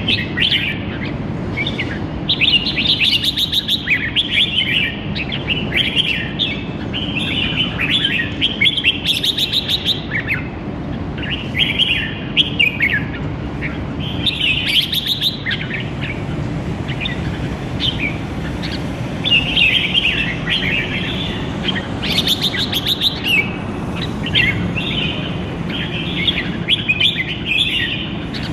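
Red-whiskered bulbul song: quick bursts of bright, chirping phrases, one after another with short gaps, in the rapid-fire 'shotgun terkan keke' style. A low, steady background rumble lies beneath.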